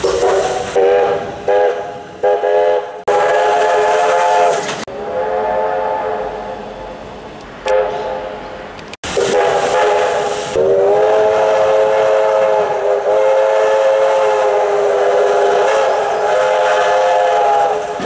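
Victorian Railways K class steam locomotive's five-chime whistle blowing several notes together: a run of short toots, then a few longer blasts, then one long blast held for about seven seconds near the end.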